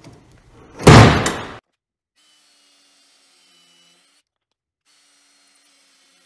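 One loud clunk from the workbench's quick-release caster hardware being worked, dying away over about half a second; then near silence.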